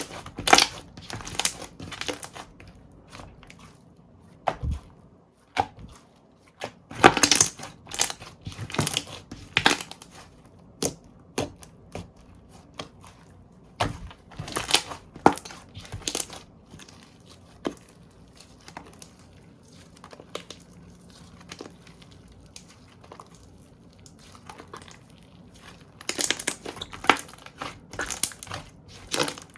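Slime being squeezed and pressed by hand, giving crackling, crunching pops in bunched bursts with quieter stretches between.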